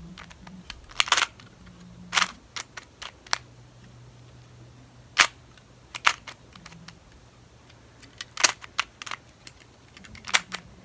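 Layers of a plastic 2x2 Rubik's cube being twisted by hand: sharp clicks and snaps as the faces turn, coming singly or in quick pairs every second or so.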